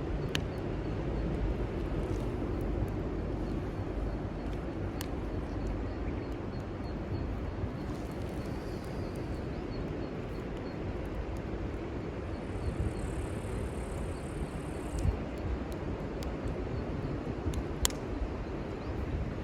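Steady wind rumbling on the microphone, with a few sharp pops from a small wood fire.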